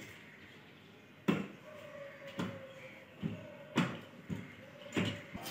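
Knocks and thumps of a laminated wooden cabinet unit being shifted and set against a wall, a handful of them about a second apart.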